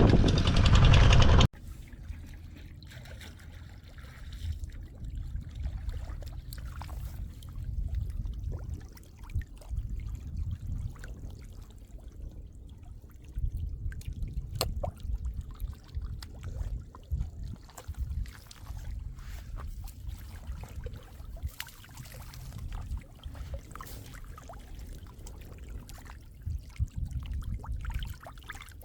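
A loud rushing noise cuts off abruptly about a second and a half in. After that, shallow floodwater sloshes, trickles and splashes softly and unevenly.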